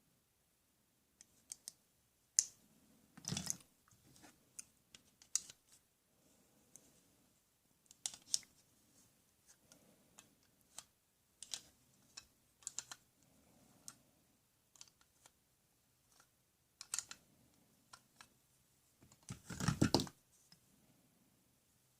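Irregular clicks and taps of small hard plastic toy pieces being handled, with a louder clatter a couple of seconds before the end.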